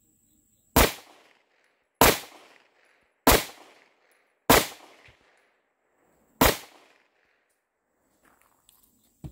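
Five semi-automatic pistol shots fired one at a time as a single string of a 5x5 drill, each a sharp report that trails off briefly. The first four come about a second and a quarter apart and the fifth after a longer pause of about two seconds.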